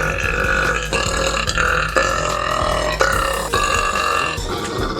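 A girl burping at length, one long drawn-out burp that stops about four and a half seconds in.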